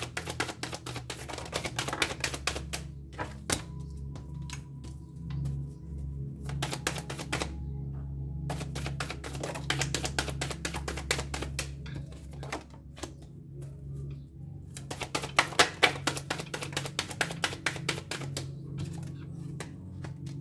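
A deck of divination cards being shuffled by hand: several runs of rapid flicking card clicks, separated by short pauses.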